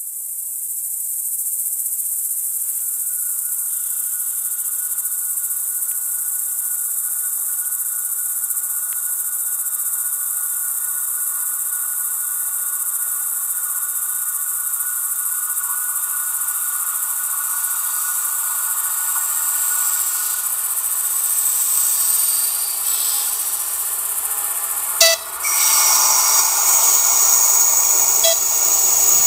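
Steady high-pitched insect chirring, like crickets. Over the last third an approaching ČD Class 854 diesel-hydraulic railcar grows steadily louder, with a sharp click a few seconds before the end.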